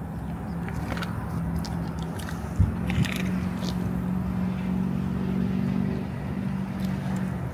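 Dog chewing and crunching on a whole raw fish, with a couple of louder crunches near three seconds in. A steady low engine hum runs underneath.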